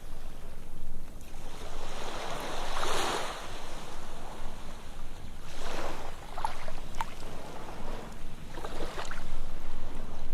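Ocean waves breaking and washing onto a sandy beach. Each wave surges in roughly every three seconds, with small crackling ticks in the foam.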